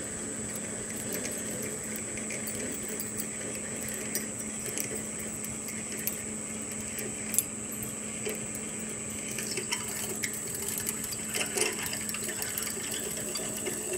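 13-inch South Bend metal lathe running steadily while a half-inch twist drill cuts through aluminium held in a four-jaw chuck, the sharp bit going easily through a drilled pilot hole. A steady hum with scattered light ticks of chips, and one sharper click about seven seconds in.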